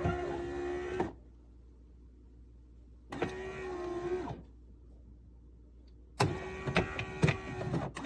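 A small electric motor inside the Mcilpoog WS-203 super-automatic espresso machine whirs in three short runs of about a second each. The last run has several sharp clicks in it.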